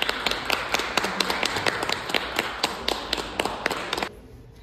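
A small audience applauding: many quick, irregular claps, a few nearby hands standing out sharply. It cuts off suddenly about four seconds in.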